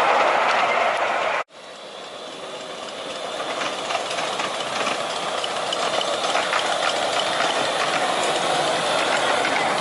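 7¼ inch gauge miniature train running on its track: a steady rumble with faint clicking of wheels on rail. About a second and a half in the sound cuts off abruptly, then comes back quietly and grows steadily louder.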